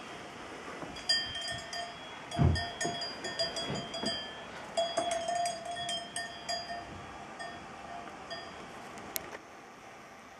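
Light metallic clinks repeated irregularly for several seconds, each leaving a short ringing tone at the same few pitches, like small chimes or a metal bowl being tapped. A low thud sounds about two and a half seconds in.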